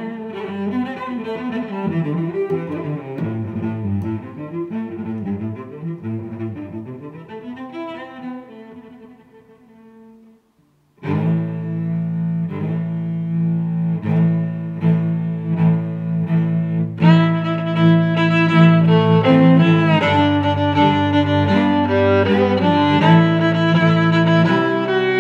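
Instrumental background music. The first piece fades out about ten seconds in, and a second piece starts a second later with a held low note, growing fuller about six seconds after that.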